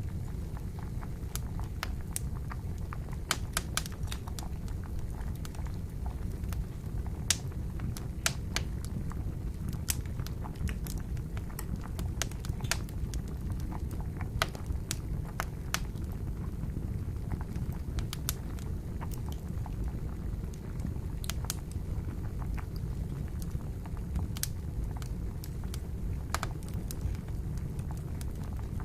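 Wood fire crackling, with irregular sharp pops and snaps, over the steady low bubbling of water at the boil.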